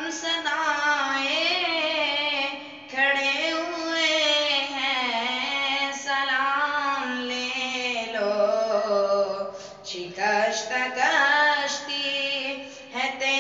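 A boy's solo voice singing an Urdu naat, with long melodic lines that glide and waver in pitch. The singing breaks briefly for breath about three seconds in, again near ten seconds, and near the end.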